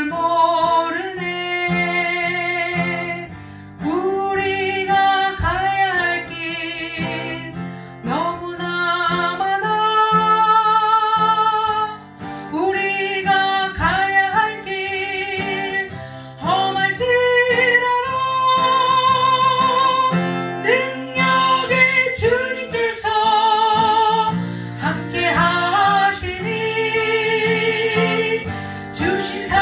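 A woman singing a Korean gospel praise song, holding her notes with vibrato, accompanied by an acoustic guitar.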